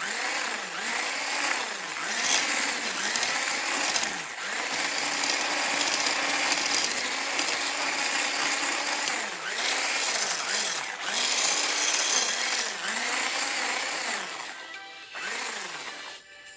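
Electric hand blender with a whisk attachment running in a metal bowl of dry bath bomb powder, its motor pitch dipping and recovering in a steady rhythm, roughly once a second, as it is worked through the mix. It stops near the end.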